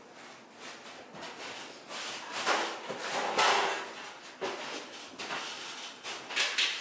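Irregular scraping and rustling handling noises as a long pull-down projector screen case is carried and lifted by hand, loudest in the middle, with a short sharp scrape near the end.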